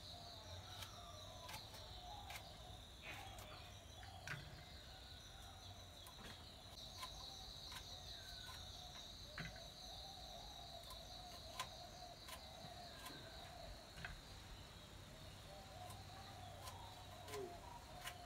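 A knife slicing through okra onto a cutting surface gives sharp, irregular taps about once every second or so. Under them runs a steady high buzz of insects, with faint bird calls.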